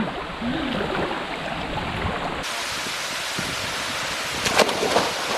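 Steady rushing noise of falling water, which changes abruptly to a brighter hiss about two and a half seconds in.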